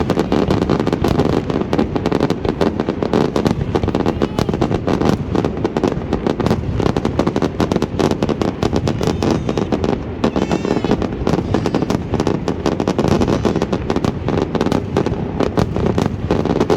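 Fireworks display: a dense, continuous volley of bangs and crackles, many shells bursting every second.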